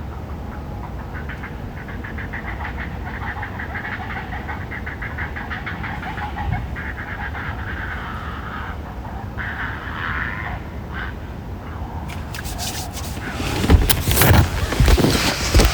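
A chorus of rapid, pulsed animal calls, many pulses a second, fading out after about ten seconds. Near the end, loud irregular rumbles and thumps take over.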